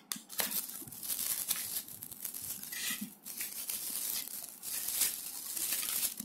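Cardboard box and clear plastic bag rustling and crinkling as a puzzle cube is unpacked by hand, with small scratches and taps throughout.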